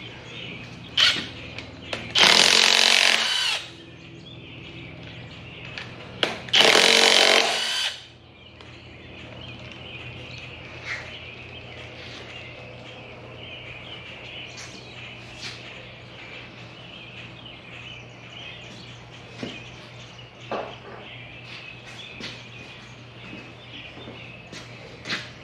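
Cordless impact wrench on a long extension running in two short bursts, about one and a half seconds each, spinning off the connecting-rod cap nuts of a 5.7 Vortec small-block V8 so the pistons can be knocked out. After the bursts, a steady low hum with a few light clicks.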